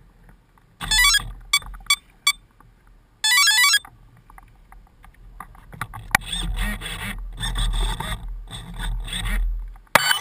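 Two short bursts of rapid electronic beeping tones, about a second and about three seconds in, with a few sharp clicks between them. From about six seconds in comes a choppy, uneven rattling noise.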